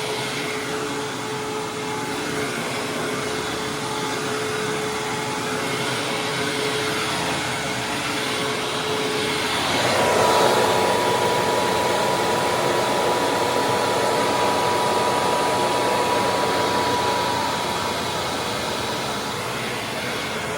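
Hoover WindTunnel Supreme upright vacuum cleaner running over carpet with a steady whine. About halfway through it grows louder and its whine jumps higher in pitch, then eases back down near the end.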